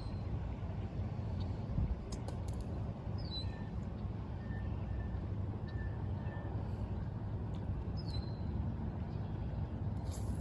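Outdoor ambience: a steady low rumble, with a few short high chirps from small birds scattered over it and a run of brief repeated notes in the middle.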